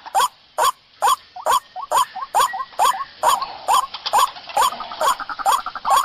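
Repeated calls of the white-breasted waterhen (ruak-ruak), a hoarse rising 'kwak' a little more than twice a second with a sharp click at each, with more calls overlapping between them: a layered bird-lure recording for drawing the bird in.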